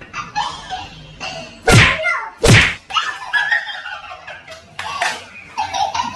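Two loud slaps a little under a second apart, about two seconds in, from paper plates of cream being pushed into faces, amid girls' laughter.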